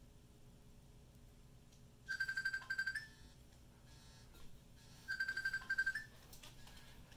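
Mobile phone ringtone signalling an incoming call: two short rings about three seconds apart, each a quick pulsing run of high notes that steps up in pitch at its end. Before the first ring there is only quiet room tone.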